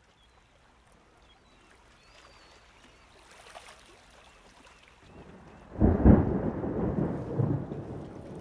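Rain hiss building slowly, then a sudden loud crack of thunder about six seconds in that rumbles on and slowly dies away.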